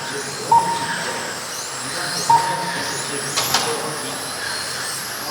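Radio-controlled race cars running on a track, their motors whining and rising and falling in pitch as they accelerate and brake. Two short electronic beeps, about half a second in and just past two seconds in, from the lap-counting system as cars cross the line, and a sharp knock about three and a half seconds in.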